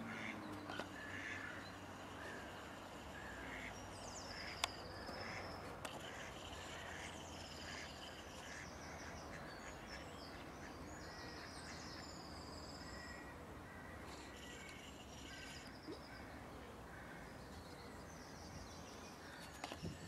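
Birds chirping and trilling in short, high, repeated calls, some sweeping down in pitch, over a steady background hiss. One sharp click about four and a half seconds in.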